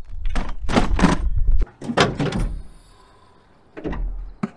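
Milwaukee Packout rolling tool box pulled out over a shed threshold: its wheels rumble and the plastic case clunks several times in the first two seconds. A single thud comes near the end.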